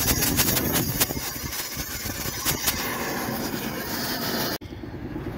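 Oxy-acetylene cutting torch with a wash tip, hissing steadily as it cuts away steel, with a rapid stream of sharp crackles and pops. About four and a half seconds in it cuts off abruptly to a quieter steady background.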